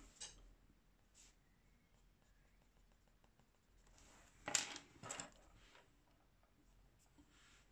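Faint scratching of a coloured pencil on paper, then two sharp clacks about half a second apart as a pencil is set down on the desk.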